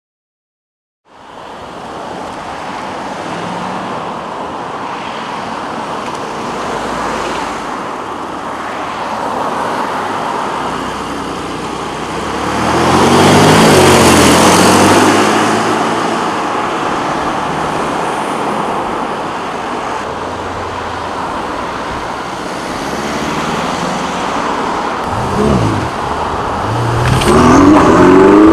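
Supercar engines and exhausts as cars pull away from a car show and drive past one after another. About halfway through, one car accelerates past loudly with a rising engine note, and near the end another car revs and accelerates hard.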